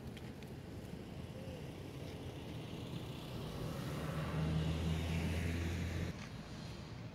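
Low engine hum that grows louder and then stops abruptly about six seconds in.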